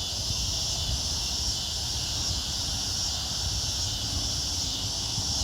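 Steady high drone of a cricket and insect chorus, with a low uneven rumble underneath.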